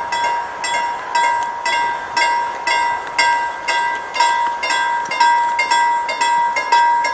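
Level crossing warning bell ringing in rapid, even strokes, about two a second, each stroke ringing on into the next. It warns that a train is approaching while the barrier arms come down.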